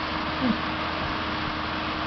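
New Holland T7.270 tractor running steadily, with a brief falling squeak about half a second in.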